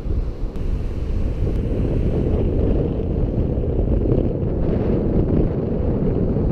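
Wind buffeting the microphone in a steady low rumble, over surf breaking on the shore.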